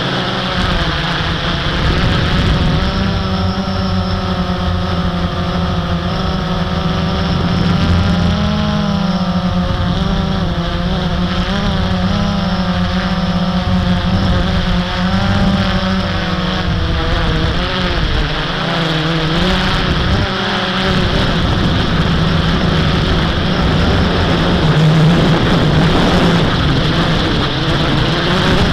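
Blade 350 QX quadcopter's brushless motors and propellers buzzing steadily, the pitch wavering up and down as the throttle changes.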